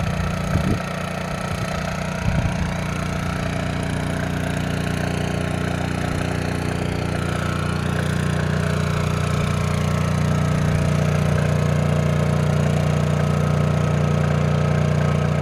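Portable inverter generator running steadily under a 1200-watt space-heater load, a low even engine drone. Two brief knocks come in the first few seconds, and the drone grows a little louder about halfway through.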